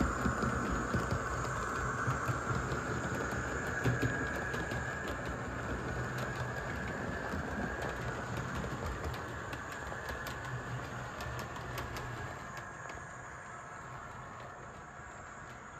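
Model train running on the layout: a steady motor-and-wheel running sound with irregular sharp clicks of wheels over the rail joints, slowly fading as the train moves away.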